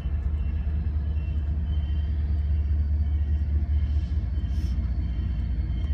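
A steady, loud low rumble.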